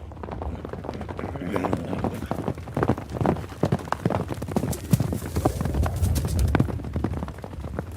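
Hooves clopping on hard ground: many irregular knocks over a low rumble, coming thicker after about a second and a half.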